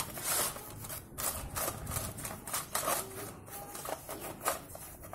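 Small brush scrubbing a wet bicycle cassette and chain in a metal tin: quick, irregular scratching strokes of bristles over the steel sprocket teeth.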